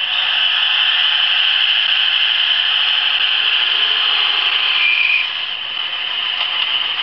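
DCC sound decoder in a model Class 153 diesel multiple unit, playing the unit's diesel engine running under power through the model's small loudspeaker. It gives a steady, buzzy, thin note with no deep bass, which drops back a little about five seconds in.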